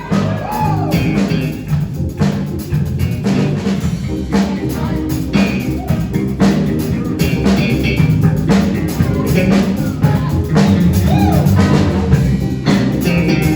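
School jazz band playing live: a drum kit keeps a steady beat under a bass line, while a saxophone plays a solo line that bends in pitch.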